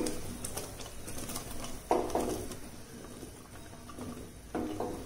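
Halved button mushrooms being pushed by hand off a steel plate into a pot of boiling gravy, with two sudden plops or knocks, about two seconds in and again near the end.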